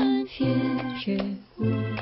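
Background music: short, evenly paced notes over a bass line, with a steady beat.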